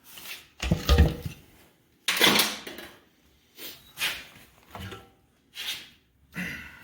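Metal tools and engine parts clanking and rattling in a string of separate short knocks, roughly one a second, the loudest about a second in, as the top end of a 360 Magnum small-block engine is taken apart.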